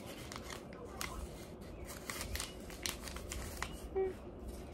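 Hands handling small toy accessories and packaging: scattered crinkles, rustles and light plastic clicks.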